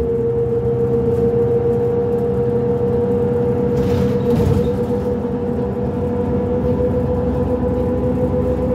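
2005 New Flyer D40LF transit bus under way, heard on board: its Cummins ISL diesel and ZF transmission running with a low rumble and a steady high whine that edges slightly up in pitch. A brief hiss comes about four seconds in.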